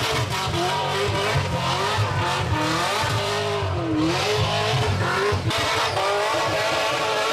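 A burnout car's engine is held at high revs while its rear tyres spin and squeal. The pitch keeps wavering up and down as the throttle is worked.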